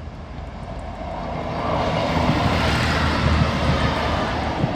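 A train passing: a rush of noise that builds over the first two seconds, stays loud, and starts to ease off near the end, with a few low knocks as it goes by.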